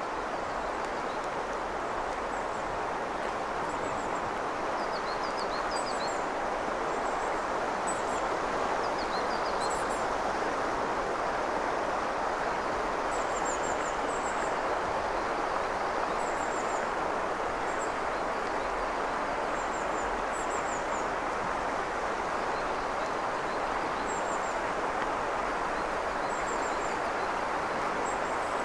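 Steady wash of a shallow mountain river running over stones. Faint high bird chirps come every second or two above it.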